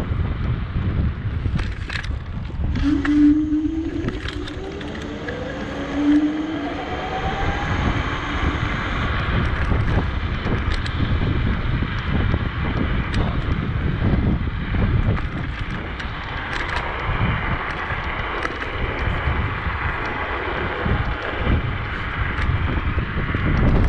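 Wind buffeting the microphone with a steady rushing noise while moving along the greenway, with a few light clicks. A faint hum rises in pitch a few seconds in.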